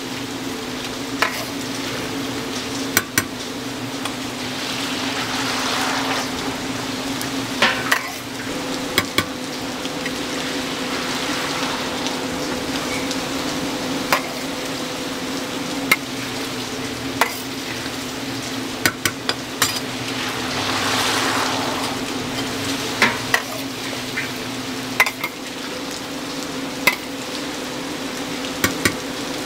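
Sweet potato balls deep-frying: hot oil sizzling steadily as they are stirred, the sizzle swelling twice, with scattered sharp taps of a utensil and a steady hum underneath.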